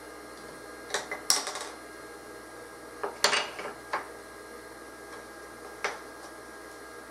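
Clicks and metallic clatter of spring clamps being squeezed open and re-seated, with aluminium pads set down under them on the fixture. It comes in three bouts, about a second in, around three seconds and near six seconds, over a steady low hiss.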